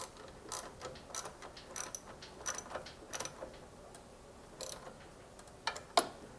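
Socket ratchet clicking in single clicks, roughly one every half second to second, as the mini bike's engine mounting bolts are tightened.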